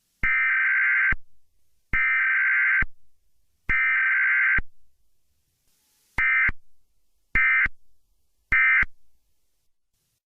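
Emergency Alert System SAME digital data bursts for a Required Weekly Test: three long header bursts of about a second each, then after a short pause three brief end-of-message bursts.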